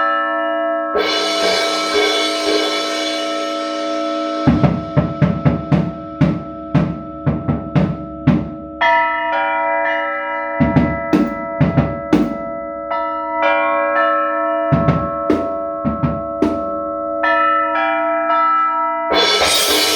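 Percussion music: struck bell tones ringing on over drum hits, with runs of quick strikes from about four and a half seconds in, and a crashing wash about a second in and again near the end.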